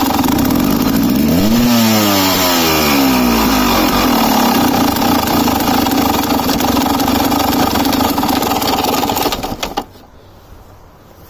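2007 KTM EXC 300's two-stroke single-cylinder engine running while misfiring. The revs rise once about a second and a half in and sink back slowly over a few seconds. The engine then stops near the end.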